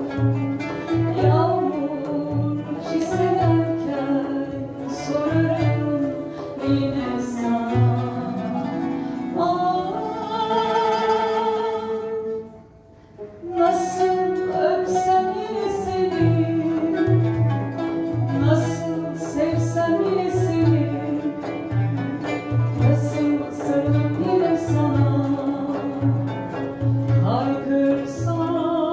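A singer performing a song with instrumental accompaniment over a steady pulsing bass. A long note is held about ten seconds in, then the music breaks off briefly before the singing resumes.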